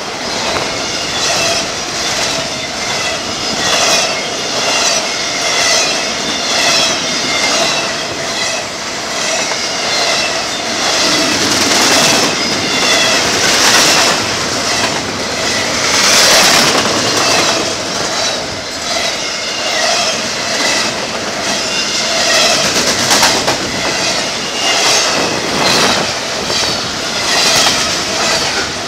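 Double-stack intermodal freight train's container well cars rolling past close by at speed, wheels clattering rhythmically over rail joints, with a steady metallic wheel squeal running under the clatter.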